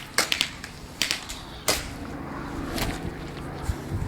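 A few sharp snaps and clicks at irregular intervals over a low background.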